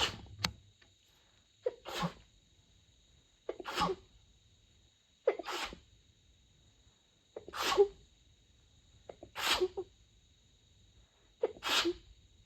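A woman's sneezing fit: about seven stifled sneezes in a row, roughly two seconds apart, each with a short catch of breath just before it. She is trying to keep them quiet, covered with a light blanket.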